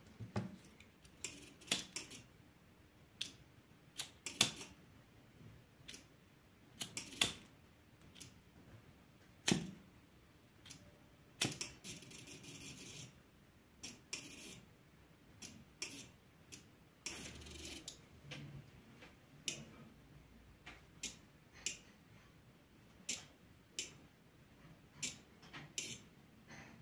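Small 12-volt relay clicking as it switches the lamp on and off while the light falling on the LDR sensor changes: a series of sharp, faint clicks at irregular intervals, roughly one a second.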